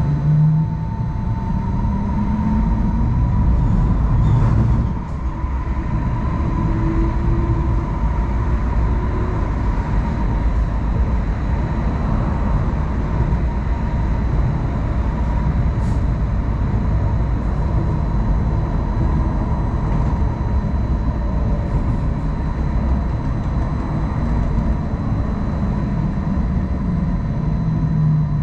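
Hong Kong Light Rail Phase I car running along the track, heard from on board: a steady rumble of wheels on rail with a constant high whine.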